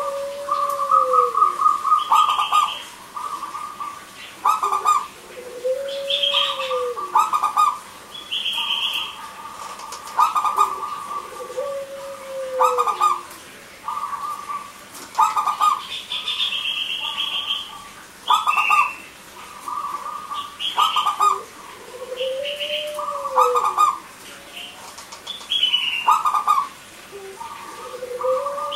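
Zebra dove (perkutut) cooing, repeating its song phrase about every five to six seconds: a run of quick staccato coos with a lower, arching note, and short higher chirps in between.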